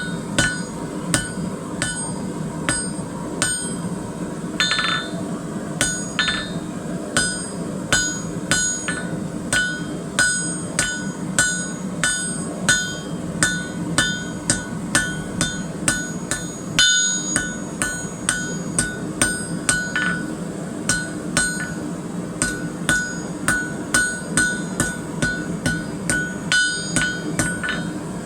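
Blacksmith's hammer striking hot steel bar stock on an anvil in a steady rhythm of about two blows a second, each blow ringing: the end of an S-hook blank being drawn to a taper. A steady low hum runs underneath.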